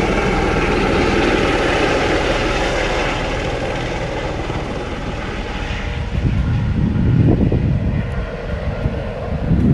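Sightseeing helicopter taking off and flying away, its engine and rotor noise loud at first and fading over the first few seconds. Gusts of wind buffet the microphone in the second half.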